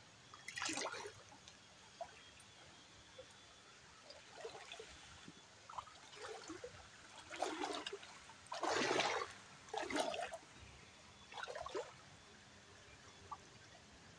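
Shallow stream water splashing and sloshing as a hand net and hands are worked through it, in several short irregular bursts, the loudest about nine seconds in.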